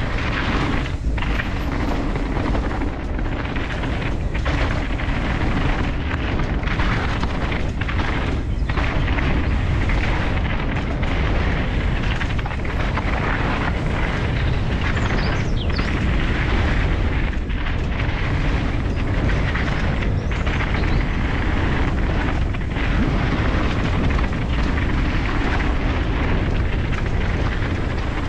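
Steady wind rumble on a helmet-mounted camera's microphone, mixed with mountain bike tyres rolling over a dirt trail at speed.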